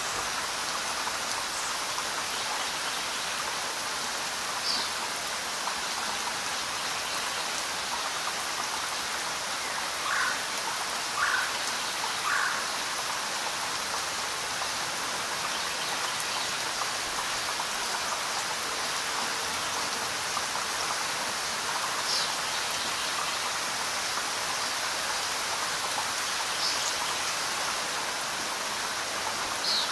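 Steady, even rain falling, with a few short, higher sounds standing out over it, three in quick succession about ten to twelve seconds in.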